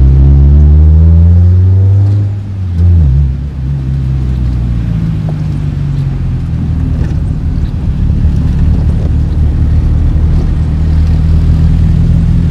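Turbocharged Honda D16 SOHC four-cylinder heard from inside the cabin, pulling hard with rising pitch for about two seconds. The throttle then lifts, and it settles into a lower, rougher drone under road noise that builds slowly again toward the end.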